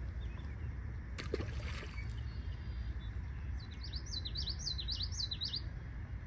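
A songbird sings a quick run of repeated high, up-and-down notes for about two seconds, starting past halfway, over a steady low rumble. A brief rustle or click comes about a second in.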